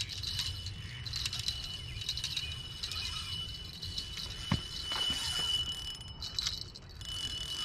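Small spinning reel clicking rapidly and irregularly while a hooked carp is played and reeled in, with one sharper knock about halfway through.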